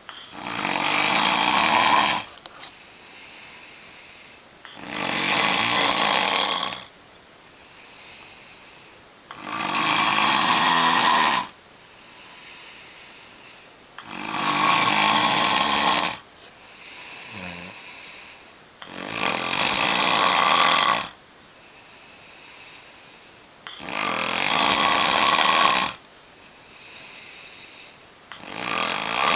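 A man snoring in a steady rhythm: a loud snore lasting about two seconds comes about every five seconds, seven in all, with a much quieter breath between each.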